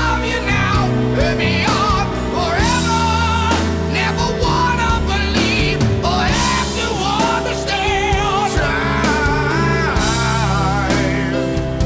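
Rock song playing as background music: held bass notes under a lead melody with strong vibrato, between sung lines.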